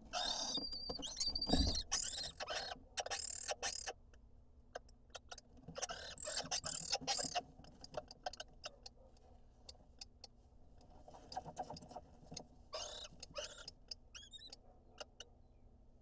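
Lesser kestrels moving about in a gravel-floored wooden nest box: scraping and shuffling of the grit, wing flutters and clicks of talons on the stones, in several bursts. A brief high call sounds near the start, and a quick run of high chittering notes comes near the end.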